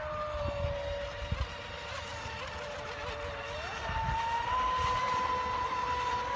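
Radio-controlled speedboat's brushless electric motor whining steadily. About three and a half seconds in its pitch climbs and then holds higher as the boat speeds up. A few low buffets of wind on the microphone come near the start.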